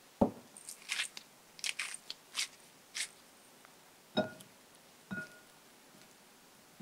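Food being prepared by hand: a sharp knock, then a run of about six crisp crunching strokes, then two knocks about a second apart that each ring briefly.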